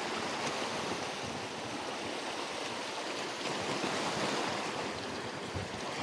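Sea surf washing in a steady rush of water.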